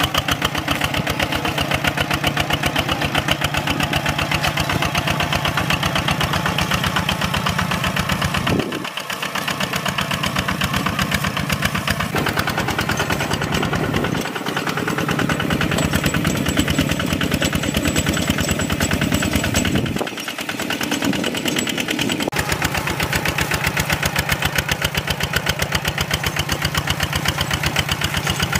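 Kubota NC Plus X walking tractor's single-cylinder diesel engine running under load while pulling a plough through dry soil, with a fast, even thudding beat. The sound jumps abruptly a few times, as at edit cuts.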